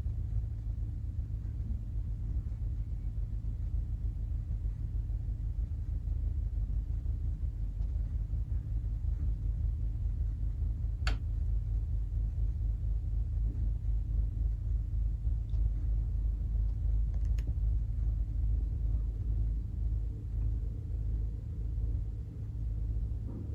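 Panasonic room air conditioner running with a steady low rumble and faint hum, and a single sharp click about eleven seconds in.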